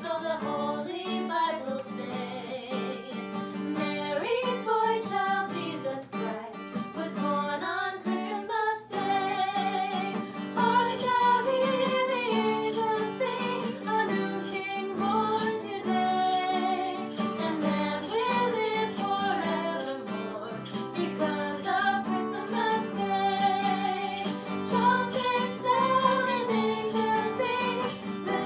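Three female voices singing a song in harmony to acoustic guitar. From about ten seconds in, a hand shaker keeps a steady beat, about two shakes a second.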